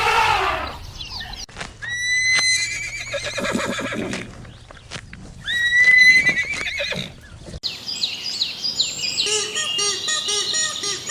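An animal giving two long, quavering, high-pitched calls, each rising at the start and wavering as it fades. About three quarters of the way in it cuts to bright, busy bird chirping.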